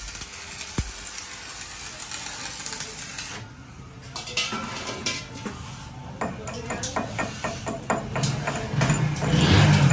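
Stick-welding arc crackling and hissing on a steel disc, with many sharp metallic clicks and clinks in the second half. A low hum comes in near the end.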